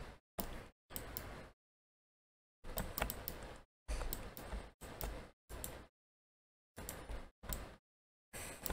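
Computer mouse and keyboard clicks over a low hiss, coming in short bursts that each cut off into dead silence.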